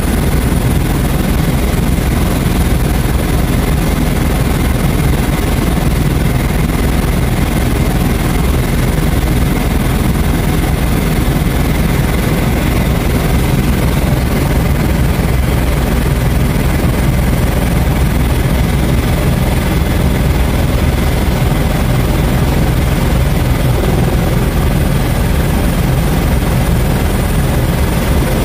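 Steady, loud helicopter rotor and engine noise, heard from inside the cabin.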